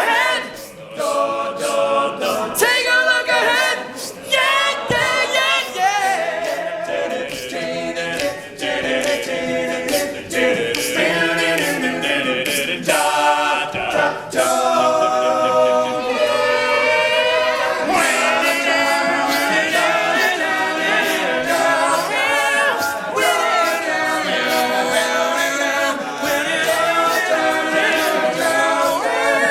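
All-male a cappella group singing, several voices in harmony with no instruments.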